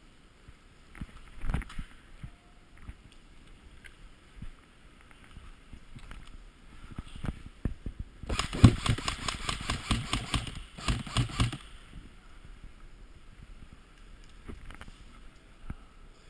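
Airsoft electric rifle firing two rapid full-auto bursts of evenly spaced sharp cracks. The first starts a little past halfway and lasts about two and a half seconds; the second follows right after and is shorter. Scattered faint knocks come before them.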